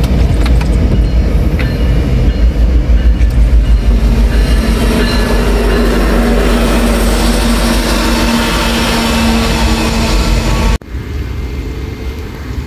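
Norfolk Southern diesel locomotives passing close at the head of an intermodal container train: a loud, heavy engine rumble, joined about four seconds in by a steady drone. About eleven seconds in the sound cuts to the quieter, even rolling of the container cars going by.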